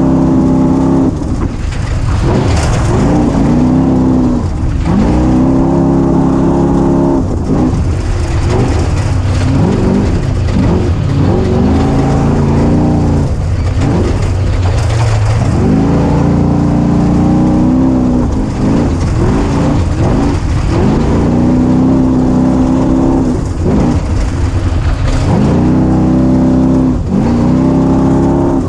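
An engine under hard throttle, its pitch climbing and holding, then dropping off, over and over every few seconds, with a steady rushing noise underneath.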